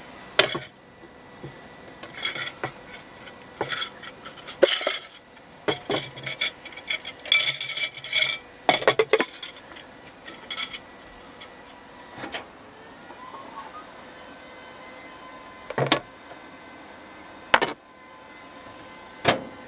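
Irregular clinks and knocks of small hard objects being handled, some ringing briefly, over a faint steady hum.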